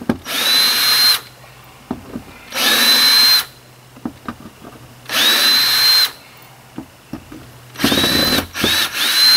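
Ryobi cordless drill backing screws out of a camper window frame. It runs in short bursts, each a whine that spins up quickly and then holds steady, with three longer runs followed by three quick ones near the end. Light clicks come between the bursts.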